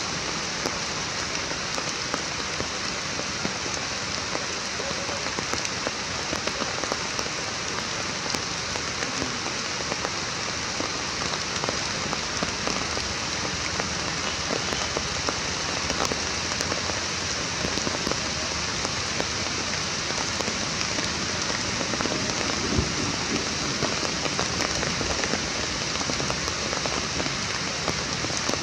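Steady rain falling, a constant hiss made of many small drop patters.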